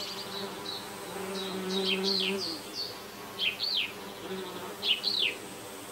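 Meadow sounds: an insect buzzing with a steady low hum for about a second and a half, under short, repeated chirping calls of a small bird.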